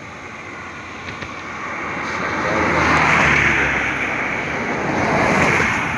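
Semi-trailer truck passing close by: engine and tyre noise swell to their loudest about three seconds in and swell again near the end.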